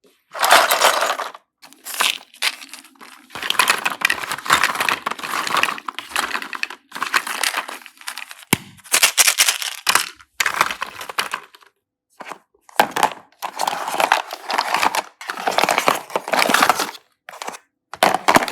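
Slime being squeezed and pulled by hand, crackling and crinkling in a run of bursts with short silent breaks between them.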